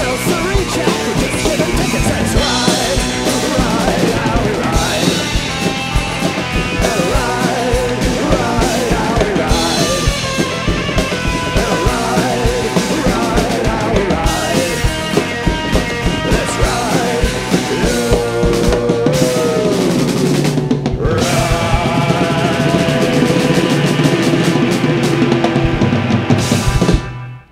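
Acoustic drum kit played hard and fast with sticks, cymbals and snare driving along with a loud punk rock track with no vocals. The music stops abruptly near the end.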